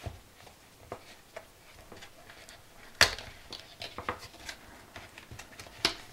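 White cardboard documentation sleeve being handled and opened by hand: light scrapes and small taps of paperboard, with a sharper knock about three seconds in and another near the end.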